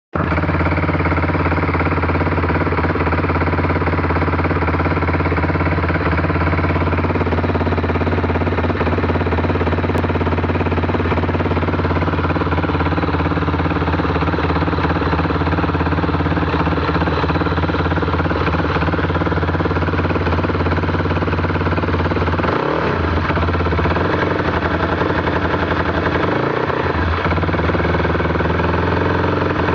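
Can-Am DS 450 quad's single-cylinder four-stroke engine idling steadily, with a hard rhythmic knock in its note. Its pitch wavers briefly twice in the last third.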